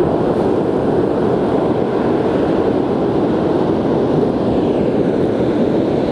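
Steady roar of wind buffeting the microphone, mixed with surf breaking on the beach.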